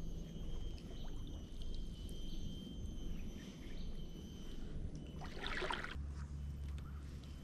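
Quiet lakeshore ambience: a steady low rumble with light water sounds, and a faint steady high tone that fades out about halfway through. There is a brief rustling burst about five seconds in.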